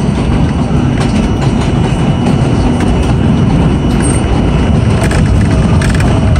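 R42 subway car running along the track: a loud, steady rumble of wheels on rail, with a few sharp clicks between about four and six seconds in.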